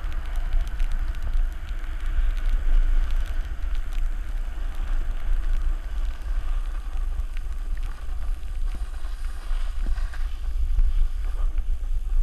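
Wind rushing over the microphone of a pole-held GoPro Hero 3 while riding downhill, with the steady hiss and scrape of a snowboard sliding over snow.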